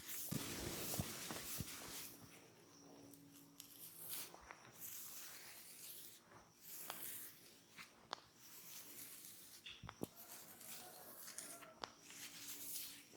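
Soft rubbing and rustling of hands working over the head, skin and hair during a massage, fuller in the first couple of seconds. A few sharp small clicks or taps are scattered through.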